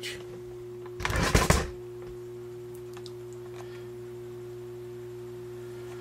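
Energized electric furnace heat strip, its open-coil resistance elements drawing about 21 amps, humming steadily at a low and a higher pitch. A brief loud rustling noise about a second in.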